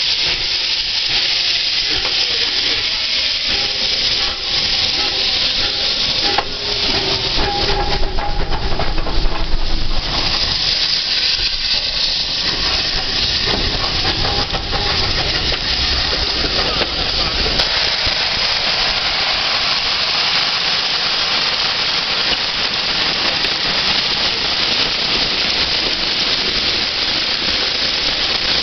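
Un-rebuilt Bulleid Battle of Britain class three-cylinder steam locomotive pulling away with its train. A steady hiss of escaping steam runs throughout, with the exhaust beats loudest about eight to ten seconds in as the engine passes. After that the coaches roll by on the rails.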